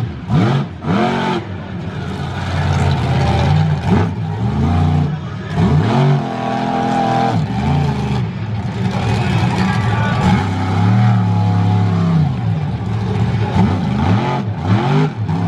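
Monster truck engine revving hard in repeated bursts, each rev rising and then falling in pitch, with a steadier held stretch about two-thirds of the way through.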